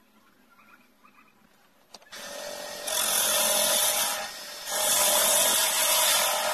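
A small wood lathe starts running about two seconds in. A hand-held pad is then pressed against the spinning green stabilized-wood blank in two passes, giving a loud rubbing hiss with a short dip between them.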